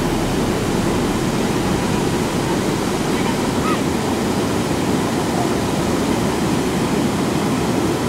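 Waterfall pouring into its plunge pool: a loud, steady rush of falling water.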